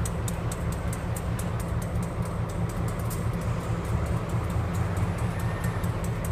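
EMD diesel road-switcher locomotives (GP38-2s and a GP18) running, a steady heavy low diesel drone, with a scatter of sharp high ticks over it.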